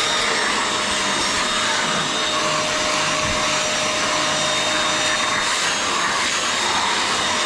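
Upholstery spray-extraction cleaner running steadily: a loud, even motor rush with a constant high whine.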